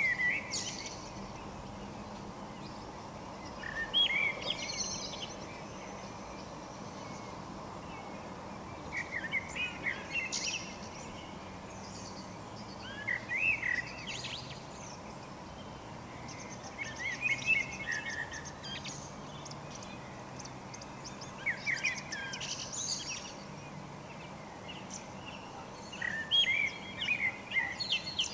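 A songbird singing at dusk in short warbling phrases of a second or two, about every four seconds, with quiet gaps between. A steady faint low background hum lies under the song.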